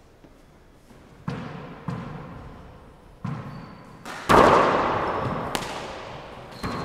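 A handball bounces a few times on the hardwood court floor. About four seconds in it is struck hard and hits the wall with a loud, sharp smack, and there are a couple more hits after that. Each impact rings out in the long echo of the enclosed court, and sneakers squeak briefly on the floor.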